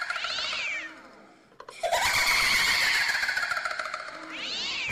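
A cat's long yowl, sliding slowly down in pitch and ending in a rising cry. It fades out just under a second in, and a second yowl of nearly the same shape follows about two seconds in.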